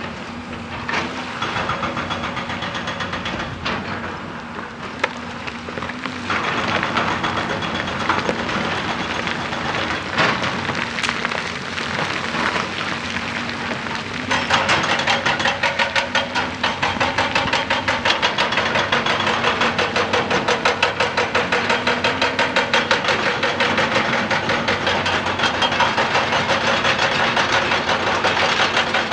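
Excavator diesel engine running under load. About halfway through, the hydraulic rock breaker starts hammering in a fast, even rhythm of several blows a second.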